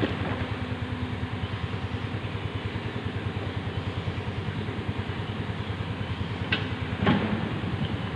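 Excavator's diesel engine running steadily with a fast, even throb. A sharp knock comes at the very start and two more metallic knocks near the end.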